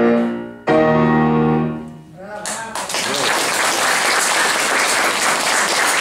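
Grand piano's closing chords: a loud chord struck just under a second in, held and dying away, followed from about three seconds in by an audience applauding.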